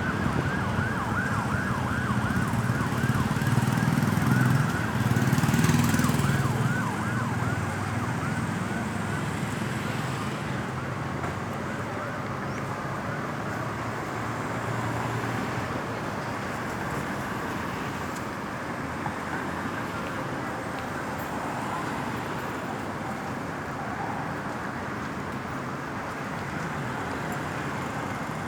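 Ambulance siren in a fast yelp passing close with its engine, loudest a few seconds in. It fades away after about eight seconds, leaving steady road traffic noise.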